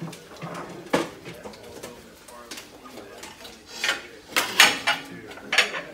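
Kitchen clatter: a handful of sharp knocks and clinks from items being handled, one about a second in and several more bunched near the end, over faint background voices.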